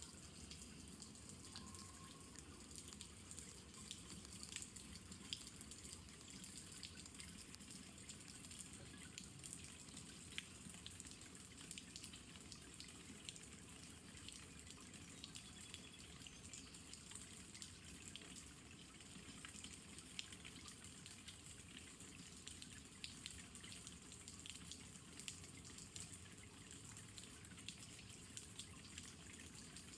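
Faint rain falling steadily, with many separate drips and drop impacts scattered through it.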